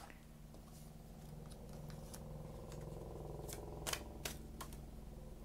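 A deck of tarot cards being shuffled by hand, with a few sharp card snaps about four seconds in. Under it runs a faint steady hum that swells and then eases off.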